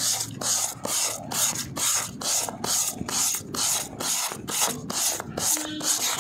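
Emery paper rubbed by hand back and forth over the wall of a plastic water tank, a steady rasping scrub of about three strokes a second. It is sanding off the sun-softened, powdery top layer around a crack so that waterproofing tape will grip.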